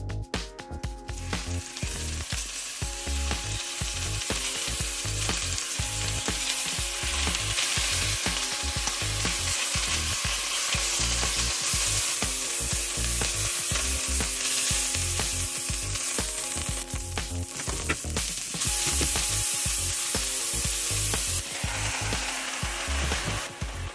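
Beef cubes searing in hot olive oil in an enamelled Dutch oven, browning before the braise: a steady, loud sizzle that builds over the first couple of seconds, with the pieces being turned and stirred.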